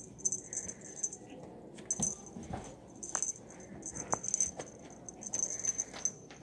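A small bell jingling in short, repeated bursts as a cat rolls and bats at a toy, with soft knocks and scuffles of its play on the carpet.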